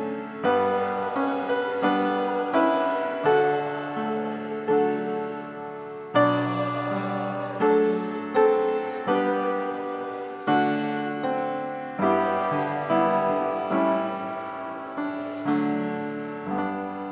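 Piano playing slow hymn-like chords, each struck and then dying away.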